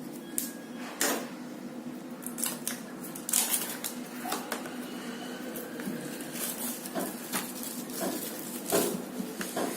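Plastic wrapping being cut open with a knife and handled: scattered sharp clicks and short crinkling rustles, the loudest about a second in and around three and a half and nine seconds in, over a steady low hum.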